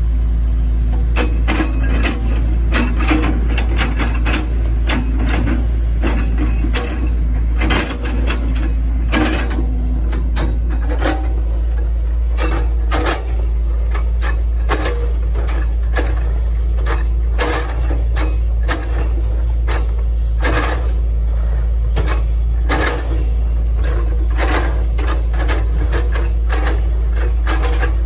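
Hitachi ZX110 MF excavator's diesel engine running steadily, with a dense, irregular clatter of sharp knocks and cracks over it.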